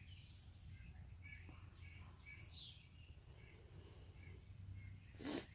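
Faint songbird calls, with one clearer chirp sweeping downward in pitch about two and a half seconds in, over a low steady hum.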